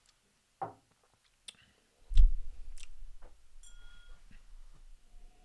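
Quiet handling and mouth sounds while whisky is being tasted: a few small clicks, then a heavy thump about two seconds in followed by a low rumble, and a short beep a little later.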